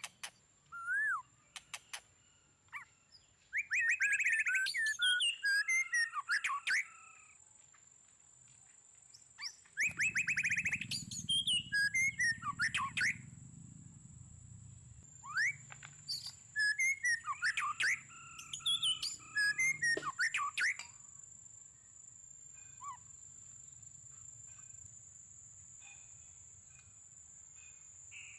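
Birds singing in repeated bursts of quick, curving chirps, over a steady thin high-pitched whine.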